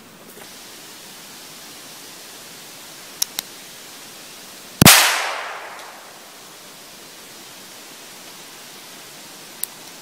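A single .22 Short rimfire shot from a tiny Little Ace single-shot derringer: one sharp crack about halfway through, its echo dying away over about a second. Two quick clicks come just over a second before the shot, and one more click comes near the end.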